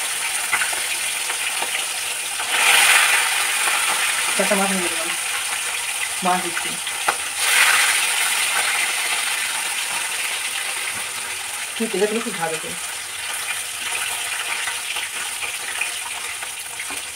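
Fish frying in hot mustard oil in an iron wok: a steady sizzle that surges louder twice, about three and eight seconds in, as the fish are laid in and moved about in the oil.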